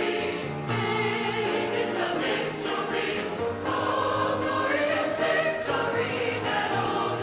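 A choir singing, with musical accompaniment.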